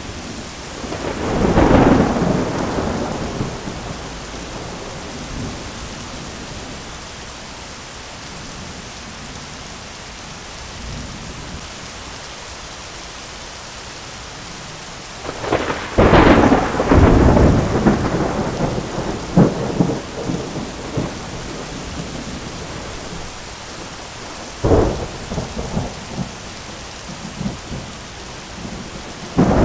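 Thunderstorm with steady heavy rain. Thunder rumbles about two seconds in. A loud crackling thunderclap rolls on for several seconds around the middle, a shorter clap follows near the end, and another begins just as it ends.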